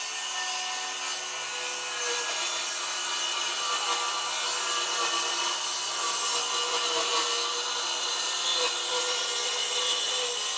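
Bosch GKS 185-LI cordless circular saw with a brushless motor cutting through a wooden board, fed slowly and evenly without being forced. The blade runs at a steady high whine through a cut of about ten seconds.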